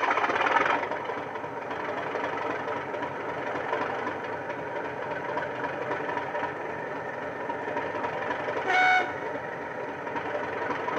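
Model-railway sound decoder playing a Class 37's English Electric V12 diesel through a small EM2 speaker in an OO-gauge Vitrains model: the engine idling steadily, louder for the first second. One short horn toot about nine seconds in.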